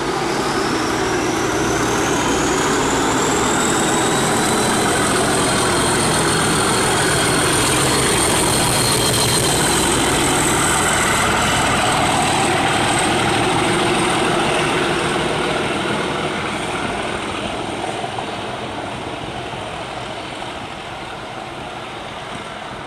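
Class 37 diesel locomotive 37716 pulling away under power, its English Electric V12 engine working hard with a turbocharger whistle that rises in pitch over the first several seconds. The sound is loudest about halfway through, then fades steadily as the train draws away.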